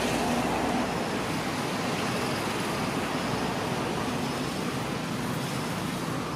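Steady rushing outdoor background noise, with a few faint short high chirps scattered through it.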